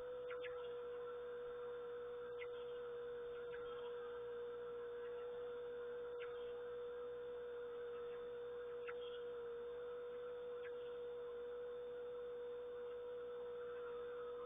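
A steady hum at one pitch over faint background hiss, with a few short ticks scattered through it.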